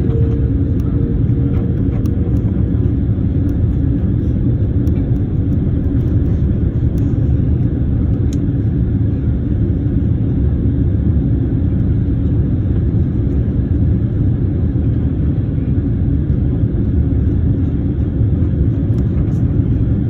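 Steady low rumble of jet engines and rushing air inside an airliner cabin in flight. A faint steady whine fades out about two seconds in.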